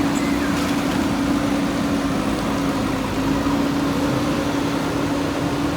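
JCB backhoe loader's diesel engine running steadily, a constant drone with one even pitch.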